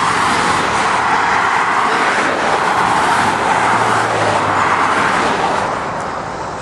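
Traffic passing close by on the roadside: a vehicle's tyre and engine noise swells over about a second, holds for several seconds and then fades away.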